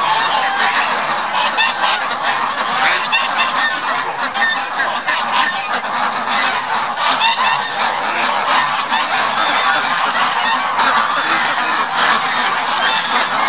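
A large flock of domestic ducks calling all at once: a loud, steady din of overlapping quacks with no break.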